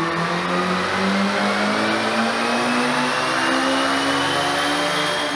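Turbocharged four-cylinder Rex racing engine in a full-load dyno pull, revs climbing steadily toward 9000 rpm.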